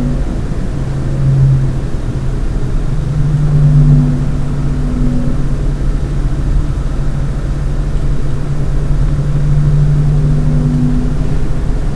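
Stock Lian Li case fans in a Lian Li 217 Infinity case running at 30% speed, giving a low droning hum that swells and wavers. A higher tone comes and goes a few times. This is the resonance noise that the owner blames on the Lian Li fan hub modulating the motherboard's PWM signal.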